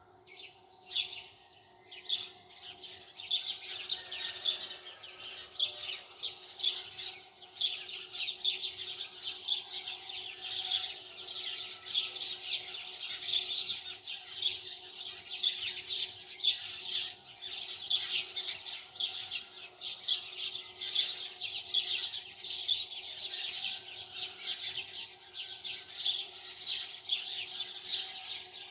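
Small birds chirping in a dense, continuous chatter of quick short calls, thickening about two seconds in, over a faint steady hum.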